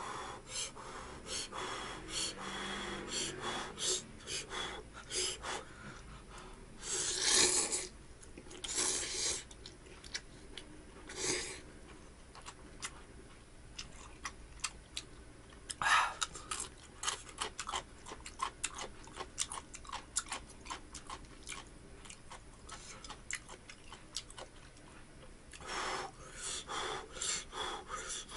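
A person eating instant ramen: several loud slurps of noodles, the strongest about seven and sixteen seconds in and a run of them near the end, with quick wet chewing and lip-smacking clicks in between.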